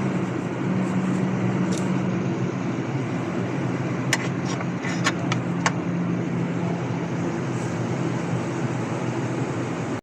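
Toyota Hiace van engine idling steadily, with a few sharp clicks about four to six seconds in.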